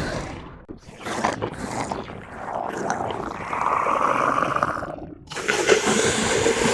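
Horror sound effect of a monster growling: rough, breathy roars in several stretches, with a short break about five seconds in.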